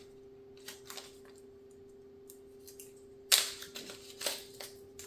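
Small packaging being handled while jewelry is unpacked: a few soft clicks and rustles, then a loud sharp crackling snap about three seconds in and a second one a second later, over a faint steady hum.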